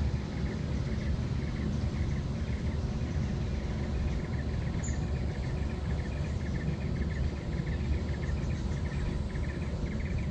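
Insects chirping in quick repeated pulses, over a steady low rumble.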